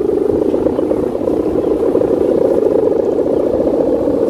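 Sendaren (humming bow) of a large babon angkrem kite droning in the wind: a steady, buzzing hum with a rapid flutter.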